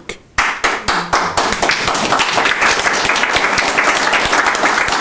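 Audience applauding. The clapping starts about half a second in and quickly builds to a steady, dense patter of many hands.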